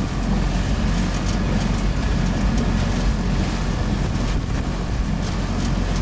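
Pontoon boat's outboard motor running steadily at cruising speed, a low even drone, with wind buffeting the microphone.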